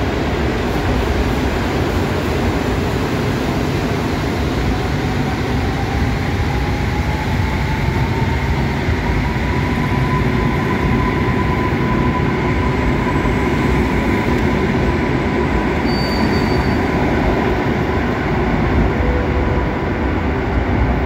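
EN57FPS electric multiple unit pulling out and accelerating past, its traction drive whining up in pitch over the first ten seconds and then holding steady over the loud rumble of wheels on rails.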